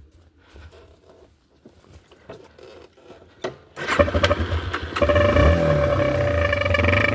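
Faint scraping and handling sounds, then about four seconds in a Yamaha TT-R230 dirt bike engine becomes loud. Around a second later, the air horn jammed into its exhaust sounds a steady honking tone over the engine.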